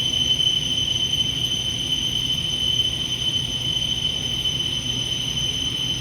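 Hurco CNC milling machine running, with a steady high-pitched whine over a low hum.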